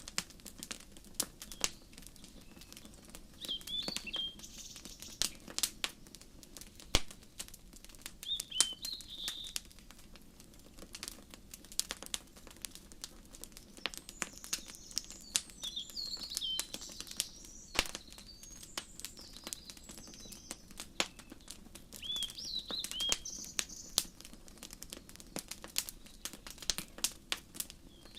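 Wood fire crackling with frequent sharp pops, while small birds chirp in short high phrases every few seconds, busiest around the middle.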